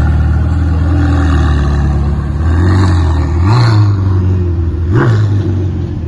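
Ferrari 488's twin-turbo V8 running at low revs as the car pulls away, with two short revs, the sharper one about five seconds in.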